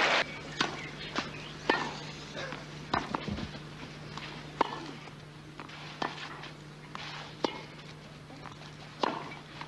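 Tennis ball hit back and forth in a baseline rally on a clay court: a string of sharp racket strikes about every one to one and a half seconds, with softer ball sounds between them, over a faint steady hum.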